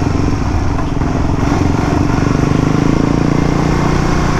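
Suzuki DR-Z400 supermoto's single-cylinder four-stroke engine running under way at a fairly steady pitch.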